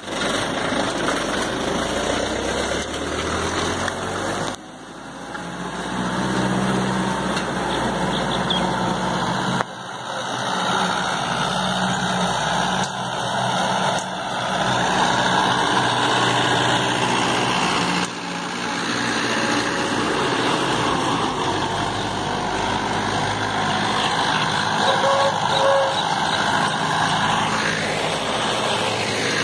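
Mahindra Arjun 555 tractor's diesel engine running, with abrupt jumps in the sound every few seconds and a rising pitch near the end.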